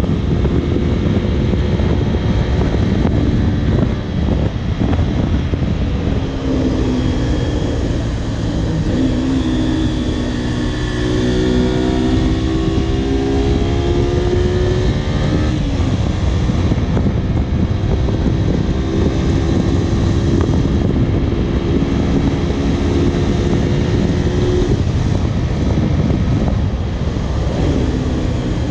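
Honda VTR250's 90-degree V-twin engine pulling the motorcycle at riding speed, over a steady rush of wind. The engine note climbs about a third of the way in, drops away around the middle, holds steady for a while, then shifts and climbs again near the end.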